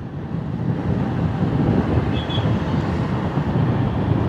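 Motorcycle running in traffic: a steady low engine rumble with road and wind noise.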